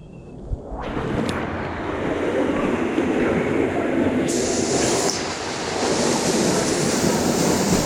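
Steady rushing roar of falling water at a waterfall pool. It swells over the first second and gets brighter and hissier about four seconds in.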